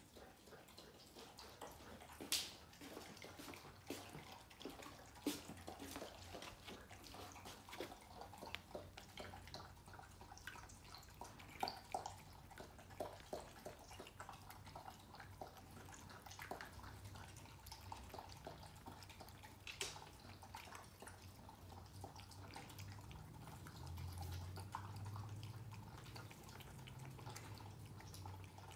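A cat and a dog eating: quiet, irregular small clicks of chewing and licking, with a few louder clicks now and then.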